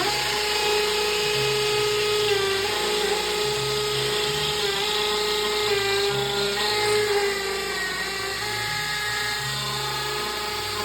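Power drill running steadily with a high motor whine that dips briefly in pitch several times, as if the bit is being loaded.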